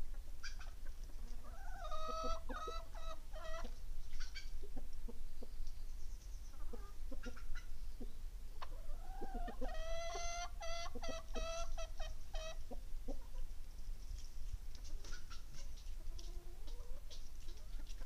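Rooster crowing twice, each crow a long call that rises and then holds level, the first about two seconds in and the second near the middle. Hens cluck briefly in between.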